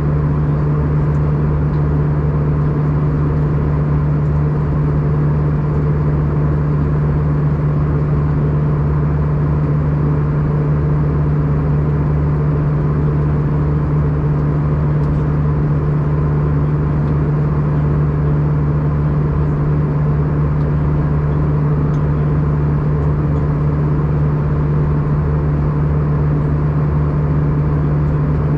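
Airbus A320 cabin noise in flight: the steady drone of the engines and airflow, with a strong low hum.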